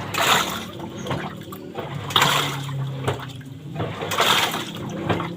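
LG top-loading single-tub washing machine agitating its load in water, with a low motor hum and a surge of churning water about every two seconds as the pulsator reverses. This is the noisy wash with a 'duk... duk' knock that the owner traces to the gearbox adjusting bolt being set too high, so the swing arm lets the stainless drum turn along as if spinning.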